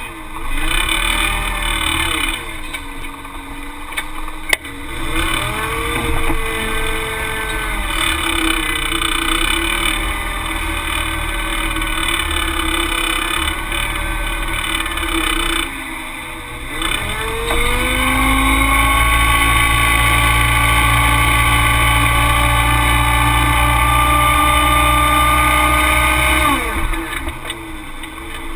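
Caterpillar forklift's engine revving up and down as the truck spins donuts on concrete, then held high for about nine seconds with the drive tyres squealing in a burnout, before it drops back near the end. A single sharp knock about four seconds in.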